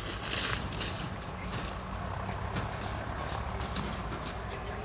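A bird gives two short rising whistled chirps over rustling footsteps through leaf litter and undergrowth, with a steady low rumble underneath.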